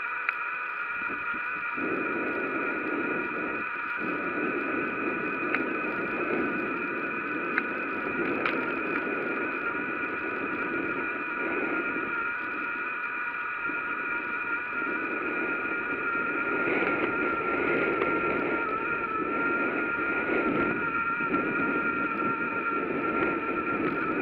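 Bicycle in motion: a rolling rush of tyre and wind noise that swells and fades, over a steady high whine, with a few light ticks.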